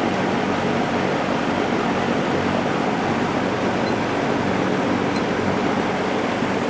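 Lakewood JCPenney 9711 box fan with a 3.1 amp General Electric motor running steadily on medium speed: an even rush of moving air with a low motor hum.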